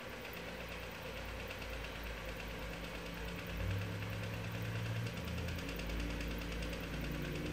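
Powered bead roller running forward, its motor and drive humming steadily as the dies roll step beads into a sheet-metal panel; the hum shifts and grows a little louder about three and a half seconds in.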